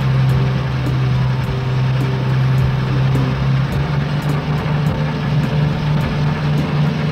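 Garbage truck engine sound effect running steadily as a low hum, its note stepping up slightly about four seconds in, with light background music.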